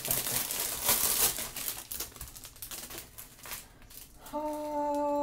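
Clear plastic packaging crinkling and rustling as a bundle of bagged diamond-painting drills is handled, with quick clicks of the small bags. About four seconds in, a woman's voice hums one held 'hmm'.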